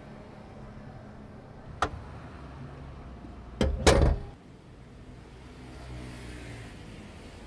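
A car's lid slammed shut: one sharp click about two seconds in, then two heavy thumps a little past halfway, over a low steady hum of street traffic.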